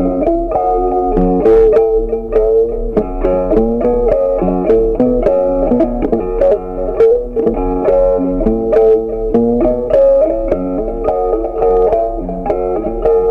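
Background music led by a plucked guitar, a steady stream of notes over a low bass line.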